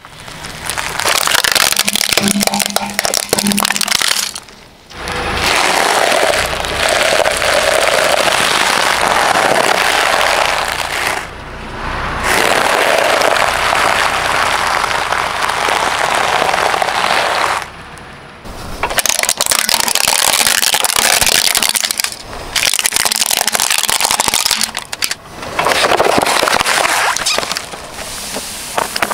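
Car tyre crushing a series of wrapped objects on asphalt, including bundles of paper money, soft rubber toys and boxed handheld games: long stretches of loud crackling and crunching, broken by several short gaps.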